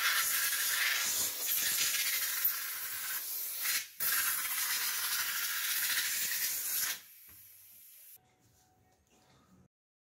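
Steady hissing jet from a hand-held spray nozzle aimed into the lamp housing's drilled holes. It comes in two long bursts, with a short break about four seconds in, and stops about seven seconds in.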